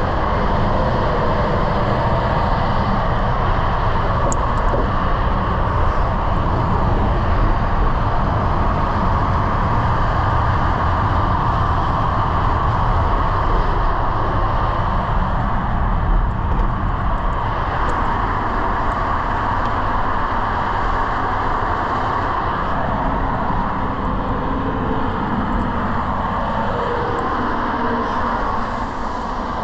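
Steady rumble and hiss of traffic on Interstate 15, the highway running through the Virgin River Gorge.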